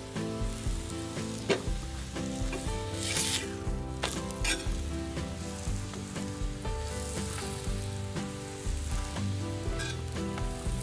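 Mixed-flour paratha sizzling on a hot iron tawa while a perforated steel spatula presses and shifts it, with short scrapes and clicks of the spatula on the griddle. The sizzle swells into a louder hiss about three seconds in.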